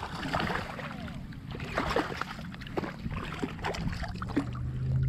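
Hooked speckled trout thrashing and splashing at the water's surface as it is being landed by hand, with irregular splashes over choppy water.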